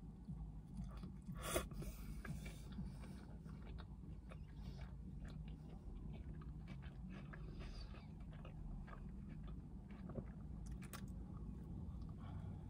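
A person chewing a mouthful of Big Mac close to the microphone: soft, wet chewing with many small clicks, and one sharper click about one and a half seconds in.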